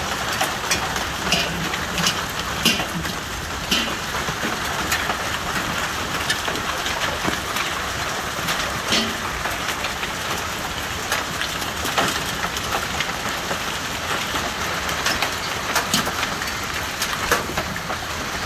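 Hailstorm: a steady hiss of heavy rain and hail, with frequent sharp cracks of hailstones striking.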